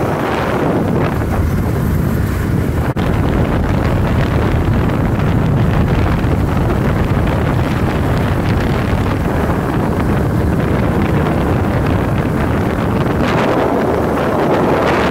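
Steady wind rushing and buffeting over the microphone of a camera carried along the road in a moving vehicle, mixed with low road and engine rumble. The level dips briefly about three seconds in.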